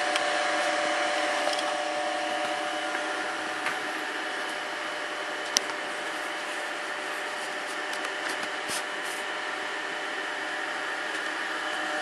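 The row of small high-speed cooling fans in a Supermicro SC113 1U server running steadily: a constant whir with a steady high whine, at the lower speed they settle to after the loud start-up once the temperature sensor has them under control. A single light click sounds about halfway through.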